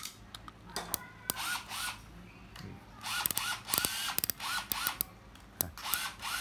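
Meteor DF2000 spinning fishing reel being handled: quick clicks and rattling of its rotor and gearing in several short spells, with short rise-and-fall squeaks.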